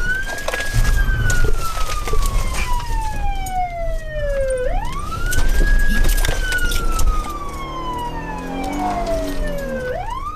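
Police siren on its wail setting. Each cycle sweeps up quickly, holds briefly, then falls slowly over about four seconds, repeating about every five seconds over a low rumble of vehicle noise.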